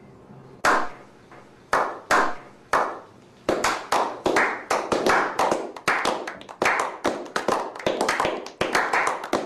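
Slow clap: single hand claps ringing out about a second apart, then from about three and a half seconds in more people join and the clapping quickens into fast applause from a small group.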